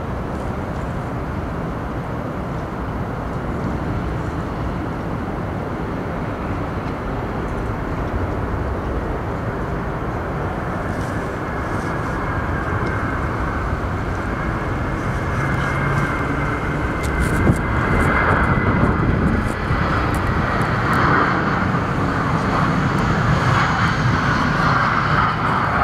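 Airbus A320 jet airliner on final approach, its engine noise growing louder as it comes in to land. In the last ten seconds a high whine glides slightly down in pitch.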